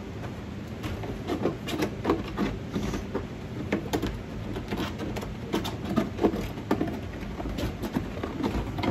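Scissors scraping and picking plastic burrs off the edges of holes drilled in a clear plastic storage tub, heard as irregular crackling clicks of thin plastic, a few a second, along with the tub being handled.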